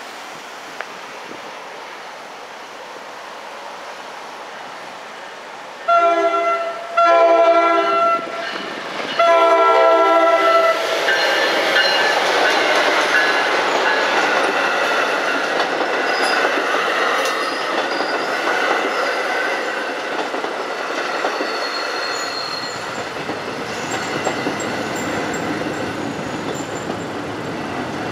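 An NJ Transit commuter train sounds its horn in three blasts, the last the longest: the warning for the grade crossing. The train then rolls through with steady wheel-and-rail noise, and a brief high squeal comes about two-thirds of the way in.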